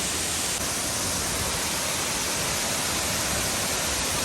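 Waterfall: water pouring down in a steady, even rush with no breaks.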